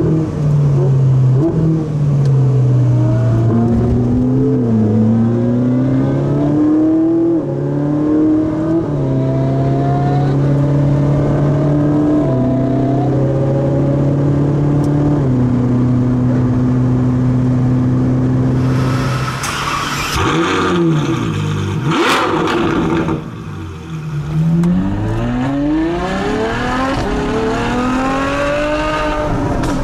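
Ferrari sports-car engines running through the gears. The engine note holds steady and steps in pitch at each shift for the first two-thirds. Then the revs swoop sharply down and up several times in a rougher, louder stretch, and the engine climbs in revs again near the end.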